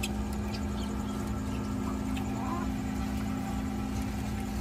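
A small motor hums steadily over a low rumble, with a few faint, short chirps from aviary birds.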